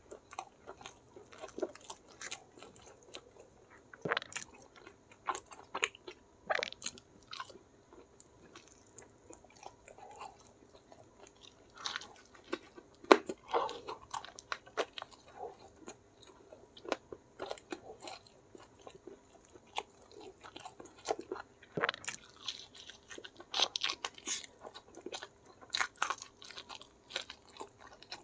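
Close-miked eating by hand: wet chewing and lip smacking with crunchy bites into spicy fried chicken, heard as irregular sharp clicks and crackles. The bites come thickest about halfway through and again near the end.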